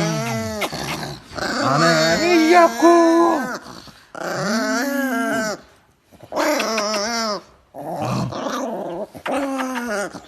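A Chihuahua growling and whining in about six drawn-out, wavering pitched bouts, each a second or two long with brief pauses between them, like a dog 'talking back'.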